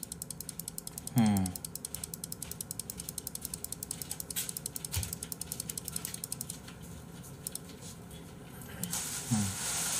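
Rapid computer mouse clicking, about nine clicks a second, stopping about seven seconds in. A short hummed voice is heard about a second in.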